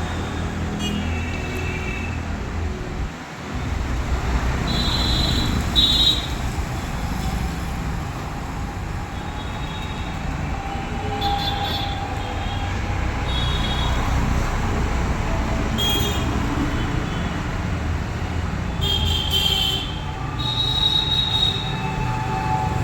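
Steady vehicle rumble and road noise, with short high-pitched squeaks every few seconds.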